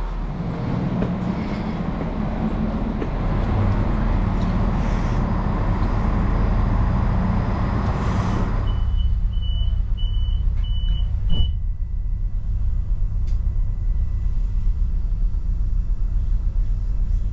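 Siemens Desiro Class 642 diesel railcar idling, a steady low engine drone under a broad rushing noise. A little past halfway the rushing noise drops away and the engine becomes a muffled low hum, as heard inside the carriage. Then about five short high beeps of the door warning signal sound, ending in a single thump.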